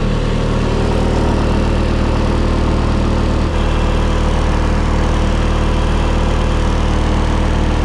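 Trailer refrigeration unit's diesel engine running steadily and loudly close by, with an even, unchanging tone while its engine hours are read before it is stopped.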